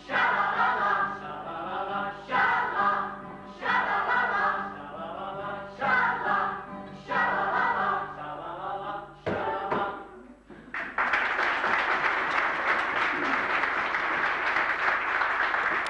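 Voices singing together in short phrases with brief pauses, stopping about ten seconds in. An audience then breaks into steady applause.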